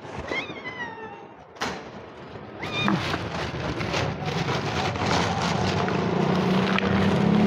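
A cat meowing: one falling meow about half a second in, then a short second meow near three seconds. A steady low hum builds up behind it in the second half.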